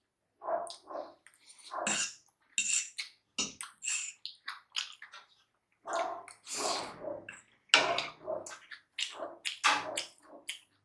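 Close-up eating sounds of spicy paneer chowmein noodles in broth: wet slurps, chewing and lip smacks coming in short irregular bursts.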